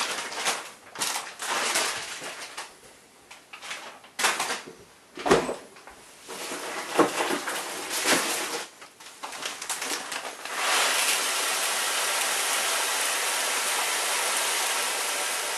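A plastic bag of malt grain rustling and crinkling in irregular bursts as it is handled. About ten seconds in, the grain starts pouring from the bag into a plastic mixing bowl, a steady even hiss.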